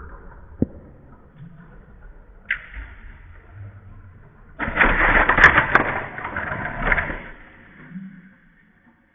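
Lego train and plastic bricks clattering: a few light clicks and knocks, then a loud rattling clatter of plastic that lasts about two and a half seconds, from a little before halfway.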